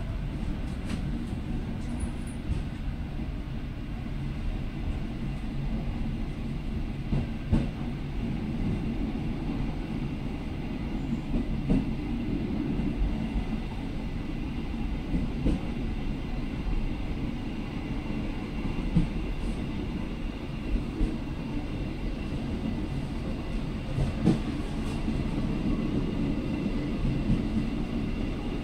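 KA Pasundan passenger train running: a steady low rumble with occasional sharp knocks.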